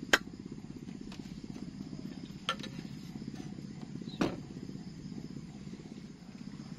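A steady low throbbing drone, broken by three sharp knocks: a loud one at the very start, one about two and a half seconds in, and one a little past four seconds.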